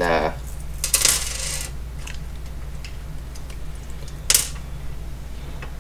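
Small metal parts clinking as they are handled: a scraping rattle about a second in and a sharp clink a little past four seconds, with faint ticks between, over a steady low hum.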